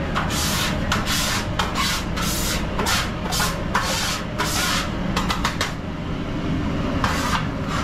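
Rhythmic scrubbing strokes on the deep fryer's metal, about two a second, clearing built-up oil residue; the strokes stop after about four and a half seconds, giving way to a few light clicks and one more stroke near the end. A steady low hum runs underneath.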